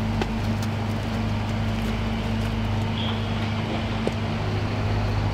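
An engine running at a steady, constant speed: a continuous low hum.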